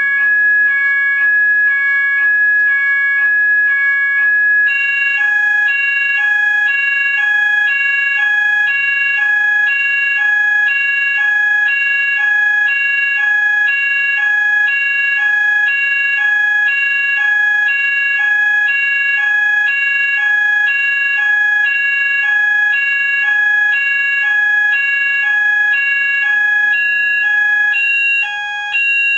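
Electronic music: a steady high tone held throughout over a regular, repeating pattern of clean synthesized notes that alternate in pitch, the pattern filling out with more notes about five seconds in.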